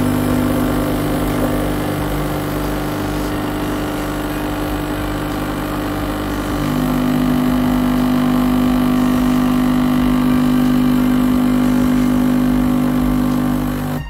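Krups Dolce Gusto capsule coffee machine's vibratory pump humming steadily as it pushes water through the machine to flush out scale. The hum gets a little louder and shifts slightly in tone about halfway through.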